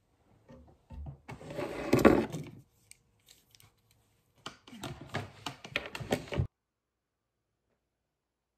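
Handling noise as a hand picks things up off a wooden desktop: rustling with knocks and clicks, in two bursts, the first louder, cutting off suddenly.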